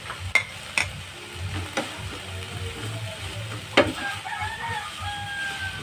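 Sautéed onion, tomato and dried shrimp sizzling in a nonstick frying pan as a spatula stirs them, with the spatula knocking sharply against the pan four times.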